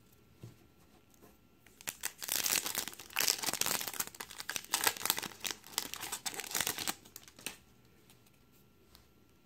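The wrapper of a 2017 Topps Update Series baseball card pack crinkling and tearing as it is ripped open by hand, starting about two seconds in and stopping a couple of seconds before the end.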